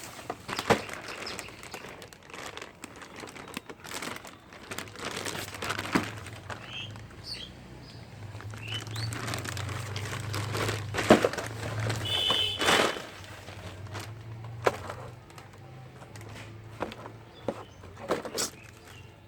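Packaging being handled and opened: plastic and cardboard crinkling and rustling, with scattered sharp clicks and knocks.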